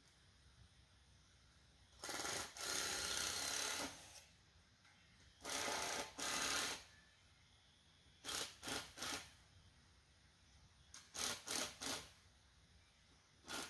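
Tool work on 2x4 lumber in bursts: two longer runs of about a second and a half each, then quick groups of three or four short strokes.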